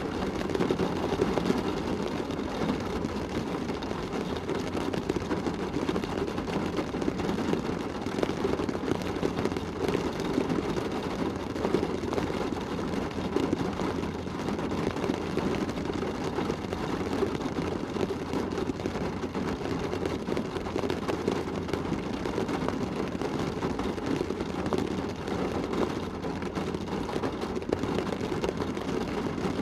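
Rain shower drumming on a car's roof and windows, heard from inside the cabin: a dense, steady patter of drops.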